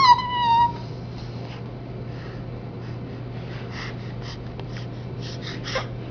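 A baby's high-pitched squeal trailing off in the first second, then soft breathing and faint breathy snuffles over a low steady hum.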